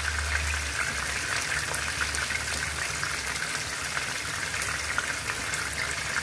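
Chicken wings shallow-frying in hot oil in a wok: a steady sizzle with many small crackles and pops, over medium-low heat as the wings finish browning.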